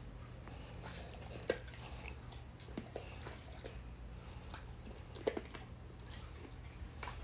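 A dog chewing a piece of steak: faint, irregular wet smacks and clicks of its mouth, a few sharper ones about a second and a half in and around five seconds in.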